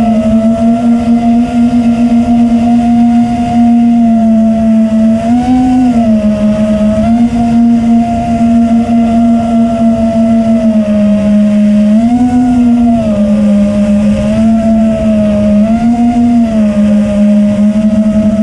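FPV quadcopter's brushless motors and propellers (Xing 2306 2450kv) whining steadily in cruise, the pitch rising briefly three times as the throttle is bumped. Wind rush on the onboard camera's microphone underneath.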